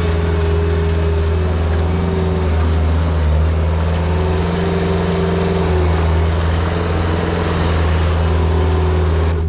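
New Holland L553 skid steer loader's engine running steadily under work, with a fainter whine above it that wavers slightly in pitch.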